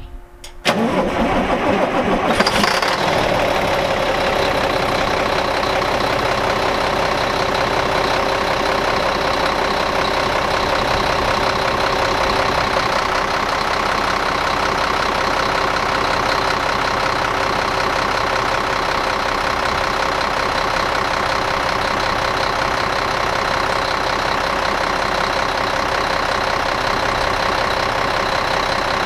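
Volvo D12 inline-six diesel in a 2000 semi tractor cranking briefly and catching within a second, flaring up about two seconds in, then settling into a steady idle. This is a cold start after months of sitting, with the glow plugs not working.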